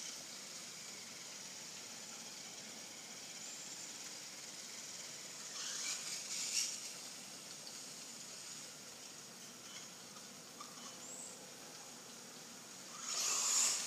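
Traxxas Slash 1/16 VXL RC truck driving on a wet road, its tyres hissing through the water as it passes close, once about six seconds in and again near the end, over a steady background hiss.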